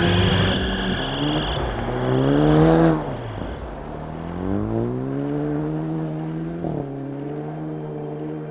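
Jaguar F-TYPE rally car's engine pulling hard on gravel. Its pitch climbs, drops sharply about three seconds in as the driver lifts or changes gear, climbs again through the middle, and then holds steady near the end.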